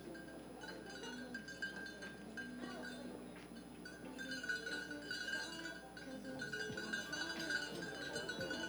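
Quiet background music with held notes.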